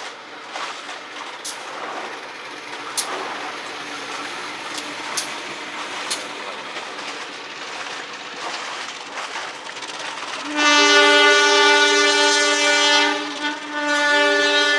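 Train running on the rails with scattered sharp clicks, then about ten and a half seconds in a loud, long two-tone train horn sounds, breaks off briefly near the end and sounds again.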